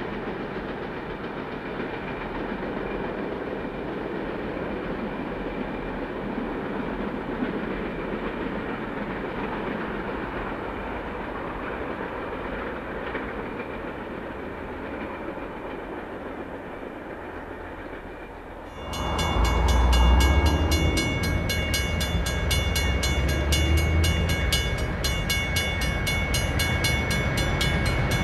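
A diesel-hauled oil tank train rumbling away along the track. About two-thirds of the way through it changes abruptly to a louder, closer sound: a 48 class Alco diesel-electric locomotive approaching at the head of tank wagons, its engine running with a deep low throb.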